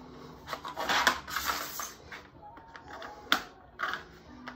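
Vinyl herringbone flooring planks and plastic cutting templates slid, lifted and set down by hand on the floor. A quick cluster of clacks and scuffs comes about a second in, then a few separate sharp taps.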